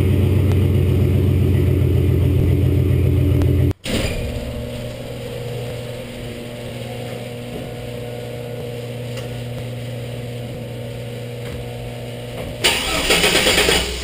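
A 1999 GMC Sierra's 4.3L V6 runs loud and steady through a side-exit straight pipe until a sudden cut a little under four seconds in. A quieter steady hum follows. About a second before the end comes a loud, ragged burst as the truck, now on a Flowmaster Outlaw muffler, is started warm; the owner says warm starts run rich because a leaky spider injector drips fuel after shut-off.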